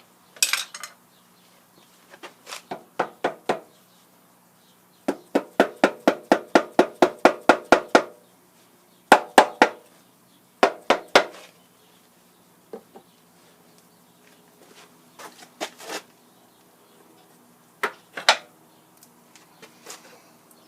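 Sharp metallic taps and knocks on the metal cover of a Rockford shaper-planer's cross-arm gearbox as the cover is worked off. The taps come in runs, the longest at about four a second for some three seconds, then shorter clusters and a few single knocks near the end.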